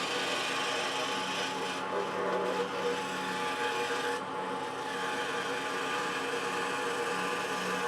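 DeWalt 788 scroll saw running and cutting through wood: a steady motor hum under a continuous rasp of the blade in the wood.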